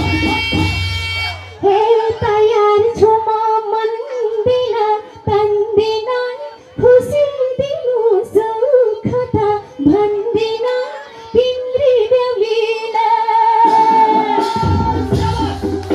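A woman sings a Nepali folk song live into a microphone through a PA system. The backing music drops out about a second and a half in, leaving her voice nearly alone with breaks between phrases, and the full backing with bass returns near the end.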